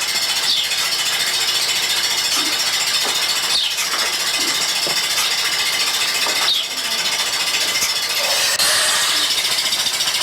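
Milking machine running on vacuum: a steady hiss of air being drawn in, with a fast regular pulsing of the pulsator coming in near the end.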